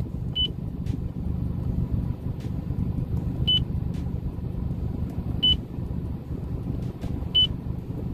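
Factory head unit of a 2008 Mazdaspeed 3 beeping as its INFO button is pressed to cycle the fuel-consumption display: four short high beeps about two seconds apart, over a steady low rumble in the car's cabin.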